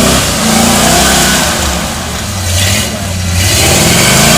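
Jeep CJ7's engine revving while off-roading, its speed rising and falling several times under changing throttle.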